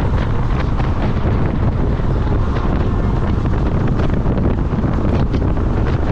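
Wind buffeting the microphone at a moving DEMU train's open window, over the train's steady running rumble.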